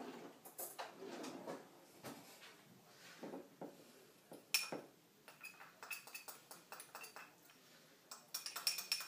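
A spoon clinking and scraping against a small glass bowl while stirring powdered spices together. There is one sharp, ringing clink about halfway through, then quick repeated clinks that are busiest near the end.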